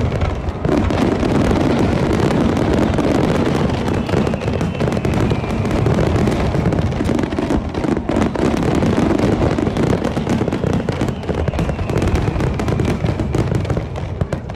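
Dense barrage of aerial fireworks: many rapid, overlapping bangs and crackling bursts with no break, loud and continuous.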